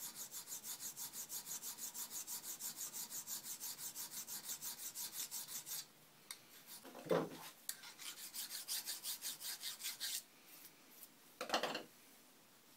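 A hand file rasping on a metal axle-box part held in a vise, in fast, short, even strokes: final fitting of the underkeep to the main body of a split journal bearing. The filing pauses about six seconds in, with a louder knock, then runs again for a few seconds, and another knock comes near the end.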